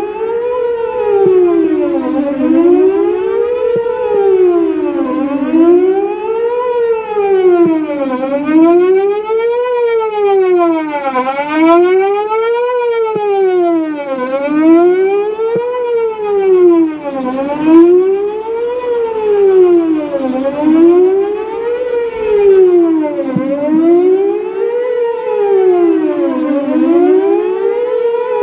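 Whelen WPS 4008 electronic outdoor warning siren sounding a loud tone that sweeps up and down in pitch, one rise and fall about every second and a half, repeating steadily.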